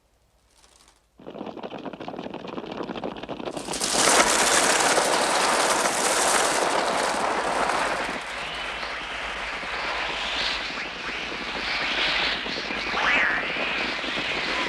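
Sound design for a crow flock attacking: a rush of noise starts about a second in, then a sudden loud mass of flapping wings and harsh bird calls swells about four seconds in and keeps going. Rising and falling shrieks come near the end.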